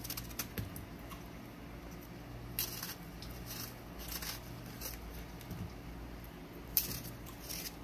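Fingers handling slices of raw eggplant on a plate: a few soft, brief touches and rustles, the sharpest one near the end, over a low steady hum.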